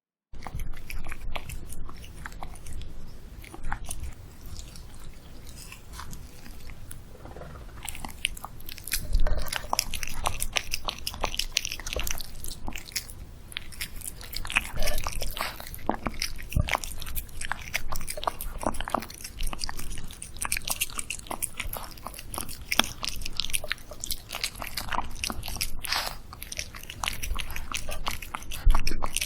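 Dog eating a homemade kabocha squash and egg dish close to the microphone, biting and chewing with irregular crunches and clicks throughout.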